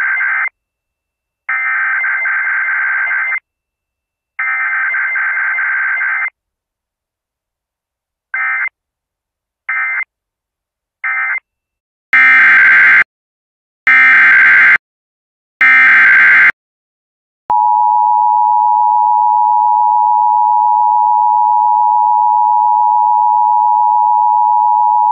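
Emergency Alert System SAME data bursts, a buzzy warbling two-tone data signal. The end of one header burst and two more full header bursts come first, then three short end-of-message bursts, then three louder header bursts. The steady two-tone EAS attention signal follows, held for about eight seconds.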